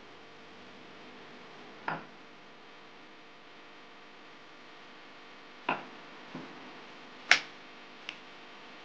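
A few sharp wooden knocks from a rolling pin being handled and set down on the worktop while puff pastry dough is rolled out. There are five knocks, the loudest about seven seconds in, over a steady faint hiss.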